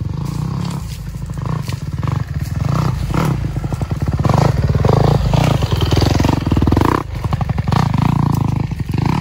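Off-road motorcycle engine running under load and revving up and down, growing louder through the middle with a brief dip near the end.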